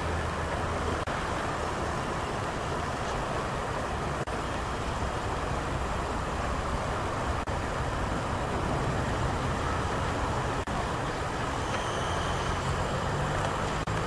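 Steady road traffic noise: an even rush of passing vehicles, with a low engine hum that grows louder near the end.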